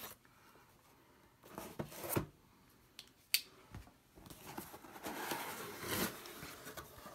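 A folding knife slitting the tape seal on a cardboard box, a few short scraping strokes about two seconds in, followed by a sharp click. Then cardboard rustles and scrapes as the box lid is opened.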